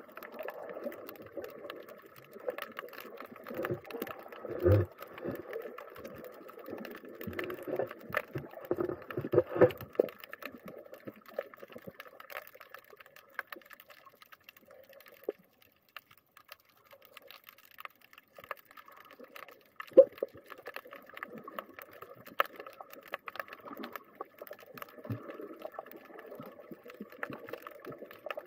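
Muffled underwater sound with irregular clicking and crackling as the camera moves over the reef. It is busy for about the first ten seconds, nearly quiet in the middle, and picks up again for the last third.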